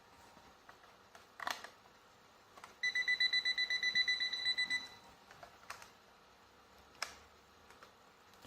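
Digital alarm clock beeping: a rapid train of high-pitched beeps lasting about two seconds. A few sharp clicks come before and after it.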